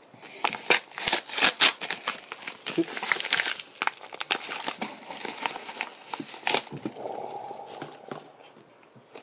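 Thin plastic shipping bag crinkling and crackling as it is handled and opened to take out a boxed puzzle cube, in quick sharp crackles that thin out after about six and a half seconds.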